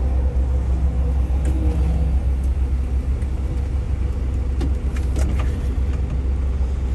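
Steady low rumble of a moving vehicle, engine and road noise heard from inside, with a few faint clicks.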